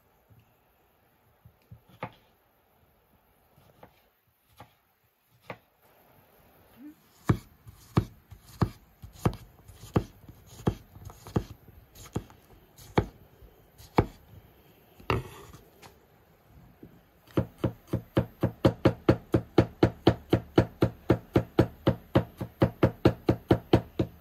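Large kitchen knife chopping vegetables on a wooden cutting board. After a few faint clicks, single knife strokes land about once a second while slicing cucumber, then from about two-thirds in the chopping turns fast and even, about four to five strokes a second.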